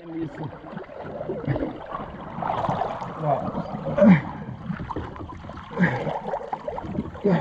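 Swift river current splashing and gurgling around a person in the water pushing a loaded kayak under a fallen log, where the kayak is stuck.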